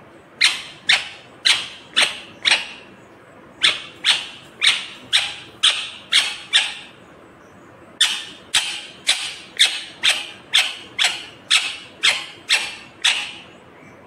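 Indian ringneck parakeet giving loud, sharp screeching calls, about two a second, in three runs: five, then six, then ten calls.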